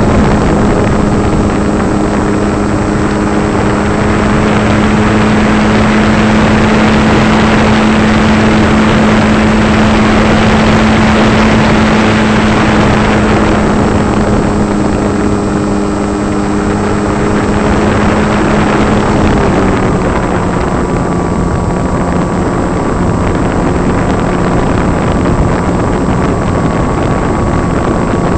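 Electric brushless motor and propeller of an RC foam airplane, heard from a camera mounted on the plane: a steady buzzing drone over a rush of air, which drops slightly in pitch about two-thirds of the way through.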